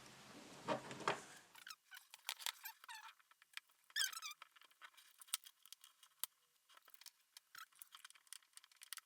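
Faint, scattered clicks and taps of faucet parts being handled and fitted, with a short squeak about four seconds in as the rubber gasket is worked over the faucet's supply tubes.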